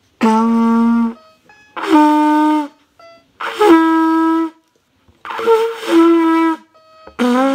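Trumpet played by a beginner: about five separate held notes, each around a second long with short breaks between, moving up and then back down. He is working through a lesson-book exercise on the notes E, F and G.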